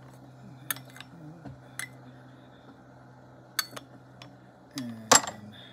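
Teaware clinking as gung fu tea is prepared: several light, separate clinks, then a louder clink near the end.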